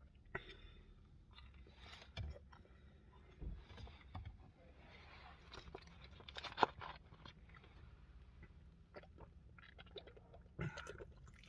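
A person faintly chewing and biting into a slice of pizza, with irregular small clicks and mouth noises and one sharper click about two-thirds of the way through.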